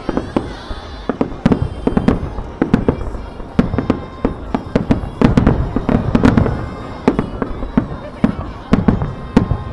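Aerial firework shells bursting in rapid succession: a steady barrage of booms, with crackling in between and a dense cluster of loud bangs about five to six and a half seconds in.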